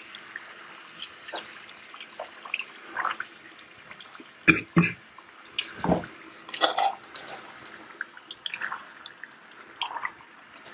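Duck breasts frying slowly in rendered duck fat in a stainless steel pot: a steady faint sizzle with scattered small pops and crackles. Sharp knocks of metal tongs against the pot, loudest a little before halfway through and again about two-thirds of the way through.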